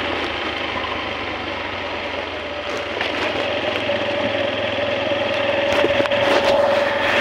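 Motorcycle engine running while the bike rides along: a steady hum with one constant tone, growing louder in the second half.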